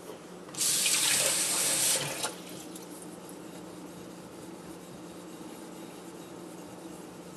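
Water splashing onto a Japanese natural sharpening stone, a loud hiss lasting about a second and a half that then stops.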